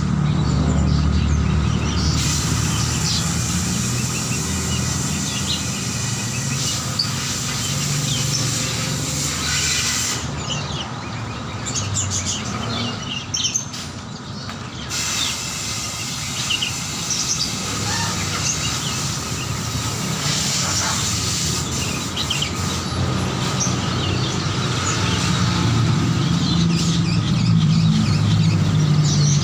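Many caged songbirds chirping and calling at once, a dense overlapping chatter of short high calls, over a low steady rumble.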